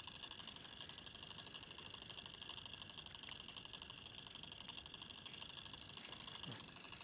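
Simple DC motor's copper wire coil spinning on its wire supports over a permanent magnet, giving a faint, fast, even rattling buzz.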